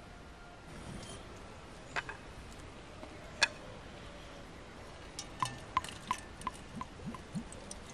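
Milk poured from a brass ewer into an enamel basin, heard as a run of quick splashing ticks, about three a second, in the second half. Two sharp knocks come before the pouring.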